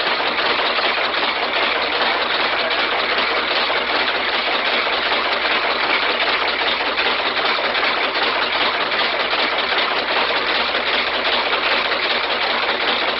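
Home-built prototype magnetic motor of wood, aluminum, brass and stainless steel running steadily, with a dense, even mechanical whirring noise.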